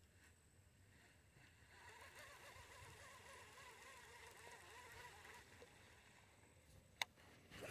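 Near silence: faint outdoor quiet on the water, with a faint wavering sound in the middle and a single sharp click near the end.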